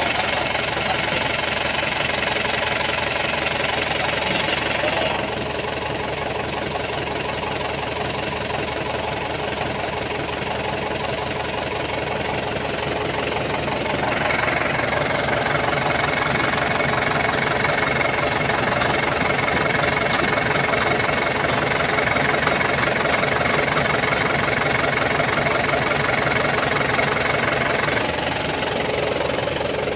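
Kubota M9540 tractor's four-cylinder diesel engine idling steadily, getting louder about halfway through and dropping back near the end.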